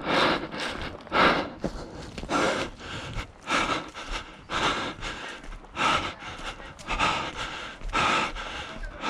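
A person breathing hard and out of breath, with loud breaths at a steady pace of about one a second.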